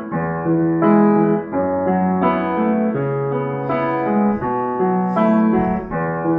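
Piano music, a run of chords changing about every half second to a second.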